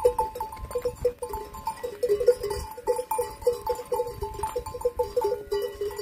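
Goat bells clanking irregularly as a herd of goats walks and jostles together, many short ringing notes at a few fixed pitches several times a second.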